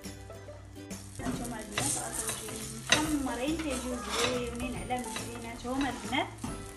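Stuffed msemmen frying in oil in a pan, sizzling louder from about a second in, with scraping and handling against the pan as the flatbread is turned. A wavering pitched sound runs over the sizzle.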